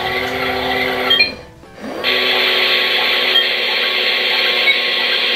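Toy dishwasher's small electric water pump running with a steady whine while water sprays inside. It cuts out briefly about a second and a half in, then starts up again with a short rising whine.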